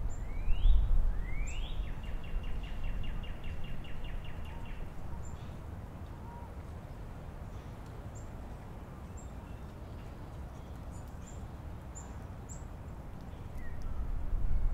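Songbirds calling outdoors: two rising whistled notes, then a fast trill lasting about three seconds, with faint high chips scattered throughout. Beneath them runs a low rumble that swells again near the end.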